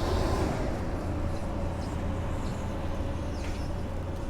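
Belt-driven HVAC blower running just after start-up, a steady low hum with a faint whine that settles to a steady pitch in the first second. The drive belt has just been re-tensioned.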